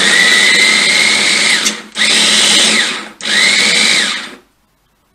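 Sonifer electric food chopper pulsed by pressing down its top: the motor whines up and runs for about two seconds, then for two shorter bursts of about a second each. The whine drops away each time it is released.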